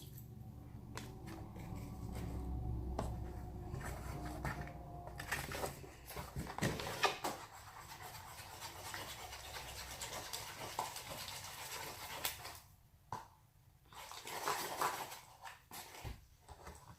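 Scraping and clicking of a spoon against plastic containers while slime ingredients are measured and handled, over a low steady hum.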